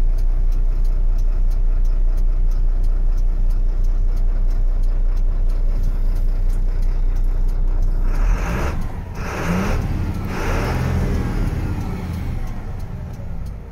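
Diesel engine of a 1996 MAN truck idling steadily, heard from inside the cab. About eight seconds in, several bursts of hissing noise break over it and the low engine hum drops back.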